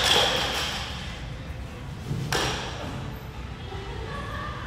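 A loaded barbell with bumper plates, just dropped on a rubber gym floor, rattling and ringing as it settles and dies away within the first half-second. About two seconds later there is a single duller thud.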